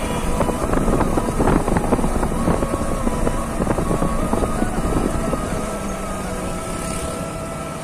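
Yamaha R15 V3's single-cylinder engine running at a steady cruise, its pitch shifting slightly now and then, with wind buffeting the rider's microphone.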